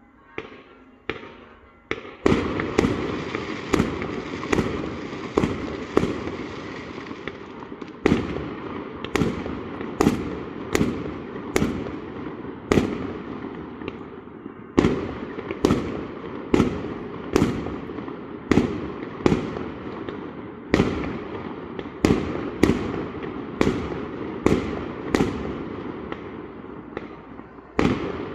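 Fireworks going off: after a couple of faint pops, a steady barrage of sharp bangs starts about two seconds in and keeps coming at roughly one a second over continuous crackling.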